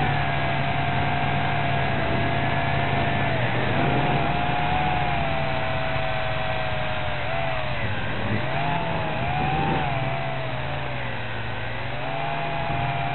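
Small toy quadcopter's motors and propellers whining steadily in flight. The pitch dips and rises again several times as the throttle changes.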